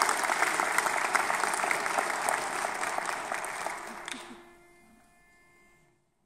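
Audience applauding, dying away about four seconds in. A faint steady held note follows as the applause ends, the starting pitch for an unaccompanied vocal quartet.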